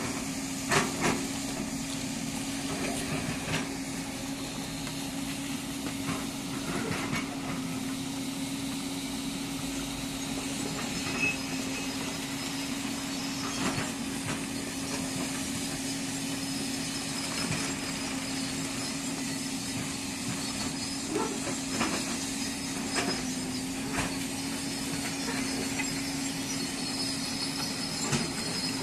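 Excavator running steadily with a constant hum, with scattered knocks and clanks from the machine working among the stones.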